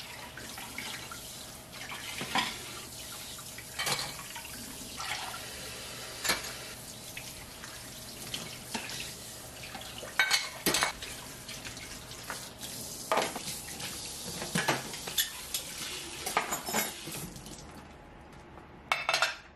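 Kitchen tap running into a stainless steel sink while dishes are washed by hand, with repeated clinks and knocks of a ceramic bowl, plastic containers and a glass. The water stops near the end, and one more clink follows.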